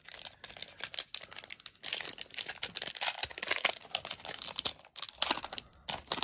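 Foil wrapper of a Pokémon card booster pack crinkling and being torn open by hand: a dense, irregular run of crackles with a couple of short pauses.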